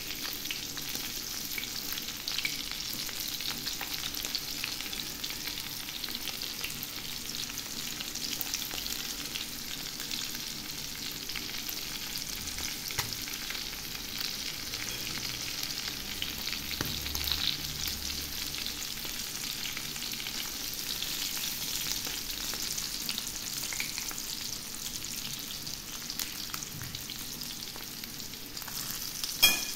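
Small whole floured fish frying in shallow oil in a frying pan: a steady sizzle with fine crackling, and one sharp click near the end.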